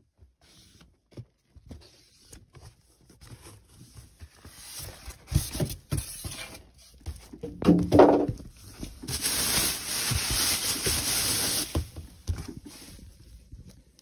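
Cardboard box and foam packing being handled and pulled open around a new washing machine: scattered scrapes and knocks, a short squeak about eight seconds in, then a steady rustle for about three seconds.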